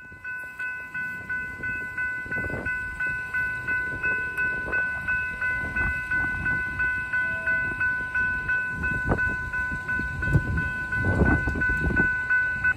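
Railroad grade-crossing warning bell ringing evenly, about three strikes a second, warning of an approaching train. Some low rumbling rises under it near the end.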